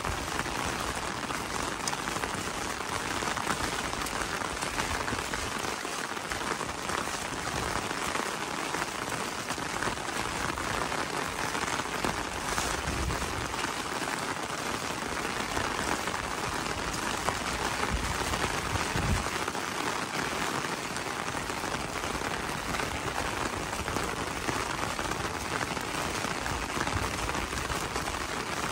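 Steady rain falling on an umbrella held overhead, a dense, even patter of drops on the fabric.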